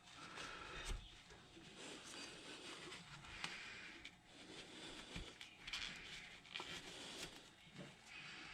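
Faint rustling of a rag wiping out an engine cylinder head, with a few light clicks and taps from handling metal parts.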